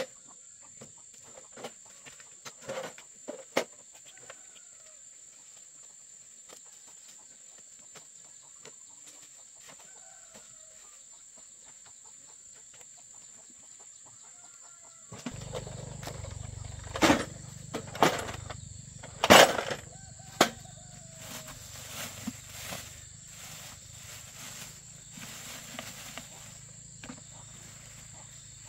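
Rural ambience: insects droning in a steady high tone, with faint bird calls and a few light knocks. About halfway through a low hum comes in, along with several sharp knocks and clatters of gear being handled; these are the loudest sounds.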